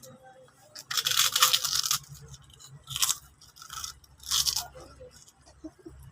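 Close-miked mukbang eating sounds: three loud, crunchy bursts, the longest about a second in, the others near the middle and later.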